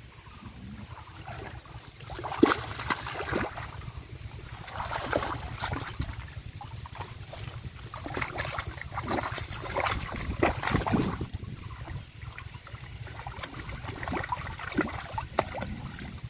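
Hands splashing and squelching in shallow muddy water as a catfish is grabbed and lifted out, in irregular bursts of sloshes and wet slaps with short lulls between them.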